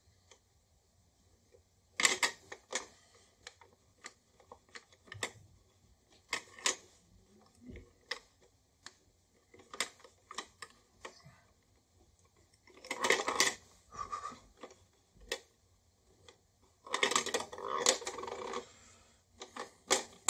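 Irregular plastic clicks, taps and rattles from the old 'Run Yourself Ragged' plastic toy being handled and tried out after reassembly. There are busier bursts of clatter about two seconds in, around thirteen seconds, and again near the end.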